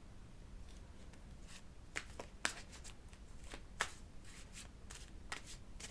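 Tarot cards being shuffled and handled: a scatter of short, irregular card flicks and slaps.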